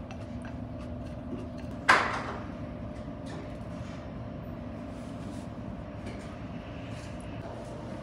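Steady hum of a dining room's background noise with light clinks of tableware, and one sharp knock with a brief ringing tail about two seconds in.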